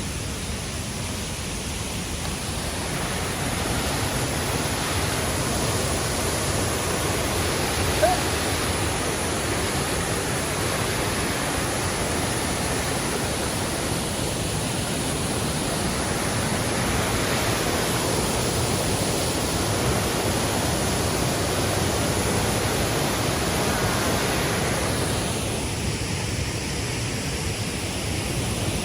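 Waterfall rushing with a steady, even noise that swells a little and eases again near the end. There is one brief click about eight seconds in.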